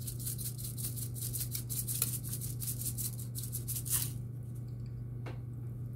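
A spice jar of dried herbs shaken rapidly over a chicken, a fast even rattle that stops about four seconds in, with a single click later, over a low steady hum.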